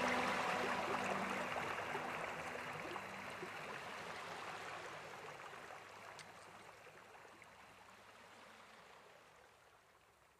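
The end of a soundtrack fading out: the last held music notes die away in the first second or two, leaving a steady hiss that grows steadily quieter until it is nearly gone.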